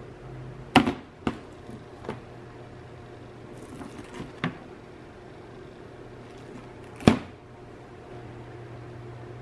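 Plastic lid and frame of a wall-mounted hanging kitchen trash bin being handled: several light clicks and knocks in the first few seconds, then a sharper clack about seven seconds in as the lid shuts. A steady low hum runs underneath.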